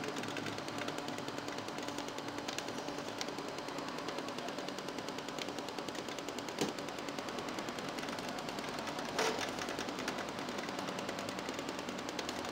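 Strip-chart pen recorder running while it plots, giving a rapid, steady mechanical ticking. There is one sharper click a little past halfway and a brief louder rattle about three-quarters of the way through.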